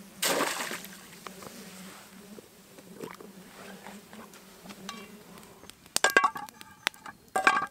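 A short rustling noise just after the start, then metal camp cookware clinking and clanking with a ringing note, in a cluster of knocks from about six seconds in to the end.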